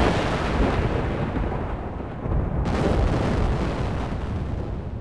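A loud, deep rumbling blast like an explosion, with a second surge about two and a half seconds in, then slowly fading.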